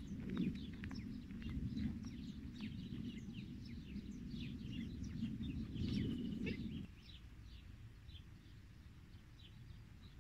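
Small birds chirping and twittering throughout, over a low rumbling noise that is the loudest sound until it stops suddenly about seven seconds in.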